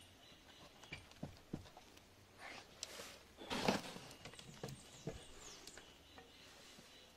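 Faint light taps and rustles from a cat walking on a wooden ledge, with one louder brief rustle about halfway through.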